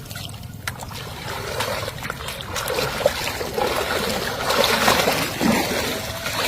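Water splashing and trickling, with scattered small knocks and a louder stretch of splashing about two-thirds of the way through.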